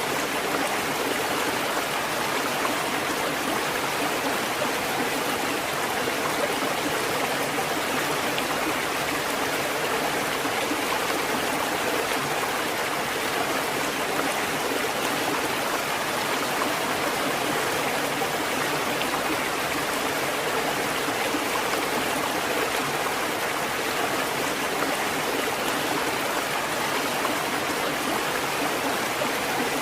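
Running water flowing and splashing steadily, an even rush that does not change.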